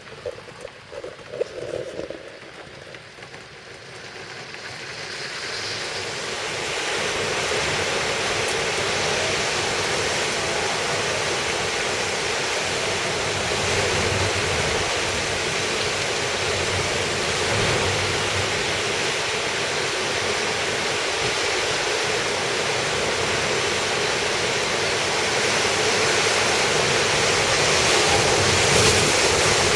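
Typhoon wind and heavy rain: a steady rushing noise that builds up over the first several seconds and then holds loud.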